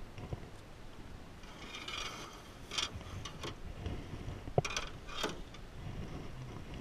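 Handling noise as a redfish is lifted out of a landing net in a jon boat: net and gear rustling and scraping, a few clicks, and one sharp knock with a brief ring about four and a half seconds in.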